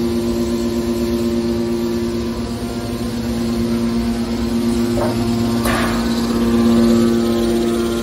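Hydraulic power unit of a scrap metal baler running: the electric motor and hydraulic pump giving a steady hum with a whine. Two short knocks about five and six seconds in.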